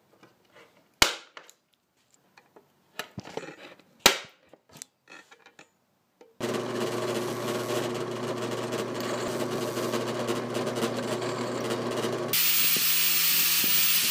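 A centre punch marking steel flat bar, two sharp clicks with a few fainter knocks. Then a drill press runs steadily, drilling a hole in the bar, and about two seconds before the end an angle grinder takes over, grinding the bar's end with a loud, hissing whine.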